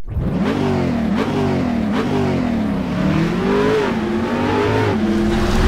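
Car engine revving: three quick blips in the first two seconds, then a longer climb in pitch that drops off near four seconds, after which it holds a steadier note.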